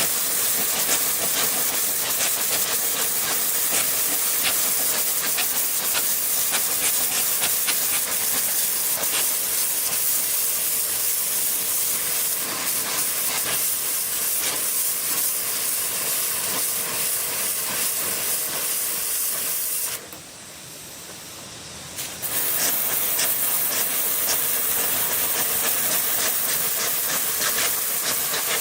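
Steady, loud hissing noise with scattered faint clicks, cutting out sharply for about two seconds two-thirds of the way through and then resuming.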